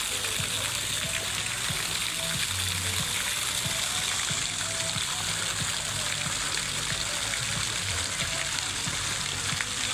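Steady running water, splashing and trickling, with soft music under it.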